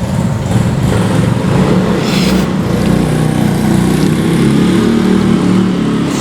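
A motor vehicle engine running close by: a loud, steady low drone that swells about half a second in.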